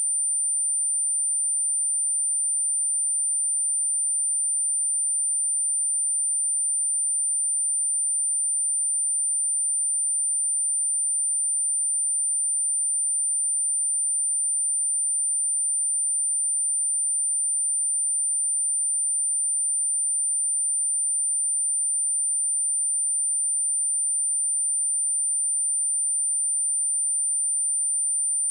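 A steady, unbroken 9146 Hz pure sine tone, a single high-pitched whistle-like test tone used to check speakers and vibrate water or dust out of them.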